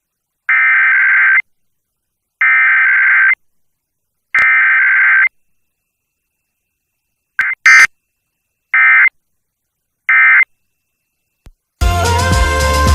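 Emergency Alert System SAME digital data tones on an FM broadcast, ending a Required Weekly Test: three buzzing header bursts of about a second each, then three short end-of-message bursts, with a sharp click between them. Music starts near the end.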